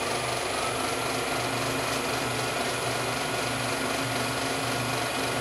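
Wood lathe running steadily at about 600 RPM with a semi-green hackberry blank spinning on it: an even motor hum with a faint whine that rises slightly about half a second in.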